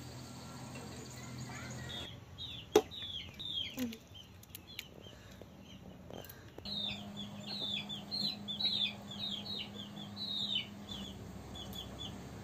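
Birds chirping: many short, high, falling chirps in quick runs. A single sharp knock comes about three seconds in.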